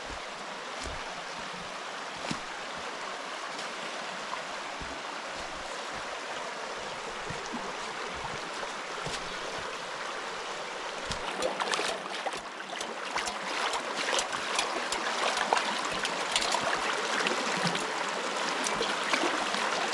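A mountain stream running steadily. About halfway through, closer splashing and small clicks and knocks join in and grow louder.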